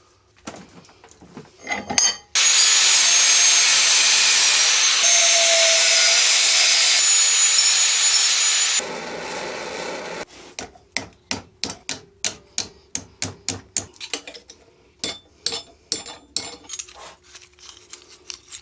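A power tool runs steadily for about six seconds while cutting through an old aluminium greenhouse runner, then stops suddenly. Rhythmic hand strokes on the metal follow, about two or three a second, while the runner is shaped into solar-panel hinges.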